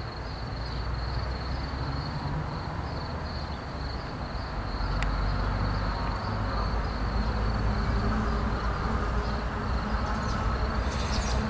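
Outdoor background noise: a steady, high-pitched, insect-like trill over a low rumble that grows louder about halfway through.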